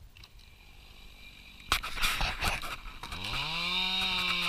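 Chainsaw starting up: a sudden clatter a little under two seconds in, then about a second later the engine revs up and holds a steady speed.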